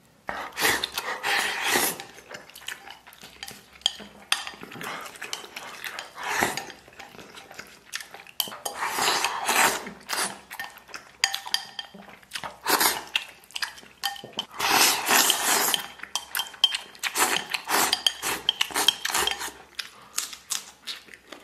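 Wooden chopsticks clattering and scraping against a ceramic bowl in repeated bursts, as rice mixed with tofu and tomato-and-egg is stirred and shoveled into the mouth.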